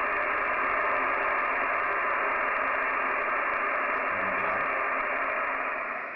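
HF ham radio receiver tuned to 21.200 MHz in the 15-metre band, giving out a steady hiss of band noise with no station heard, cut off sharply above the narrow voice passband. The hiss drops away near the end.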